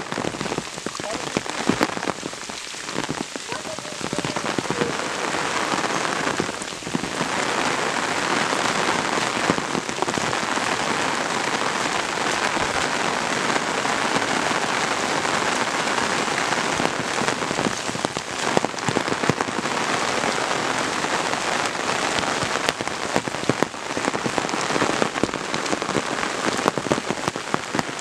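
Steady rain falling, with many sharp drop hits on an umbrella held over the microphone.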